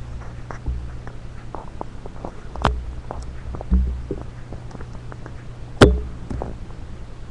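Small plastic toy figures being handled, with scattered clicks and taps, two louder sharp clicks and a dull thump, over a steady low electrical hum.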